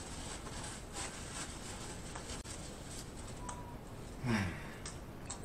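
A man's short, low vocal sound falling in pitch, about four seconds in, over faint scattered clicks.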